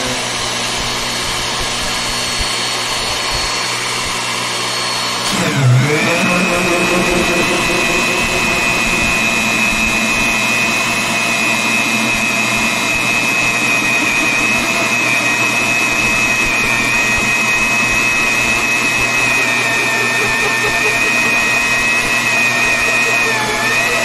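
VEVOR magnetic drill press motor running with a 50 mm tungsten-carbide-tipped annular cutter, which bites into half-inch mild steel about five seconds in. The motor slows briefly and its speed control brings it back up, then it holds a steady high whine as the cutter bores the hole, dipping slightly again near the end.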